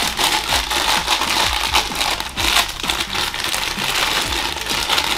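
Thin plastic blind bag crinkling continuously as hands squeeze and pull it open, a dense run of small crackles.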